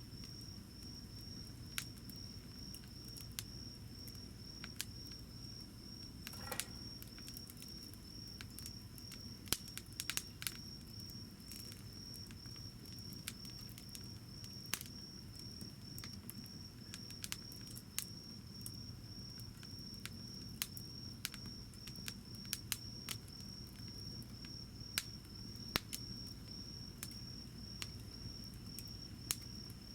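Wood fire burning in a camp fire pit, crackling with scattered sharp pops, a few louder ones around ten seconds in and again near twenty-five seconds. Under it an insect trills steadily at a high pitch in rapid pulses.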